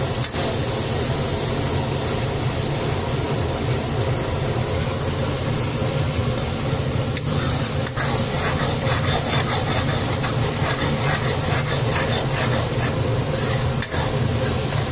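Spiced onion-tomato masala sizzling in mustard oil in a metal kadhai while a spatula stirs and scrapes through it, with a few sharp knocks of the spatula against the pan. A steady low hum runs underneath.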